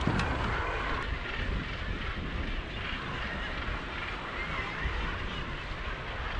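Wind rumbling on the microphone over a steady rush of open sea around a small boat.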